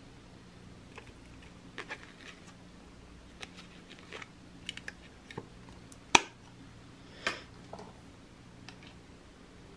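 Small clicks and taps from a vintage Dorset Fifth Avenue metal powder compact being handled, scattered irregularly, with a sharper click about six seconds in and another about a second later.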